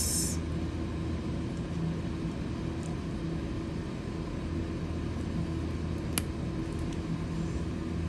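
Pliers crimping an insulated ring terminal onto a wire, heard as a sharp click about six seconds in and a fainter one near three seconds, over a steady low machine hum.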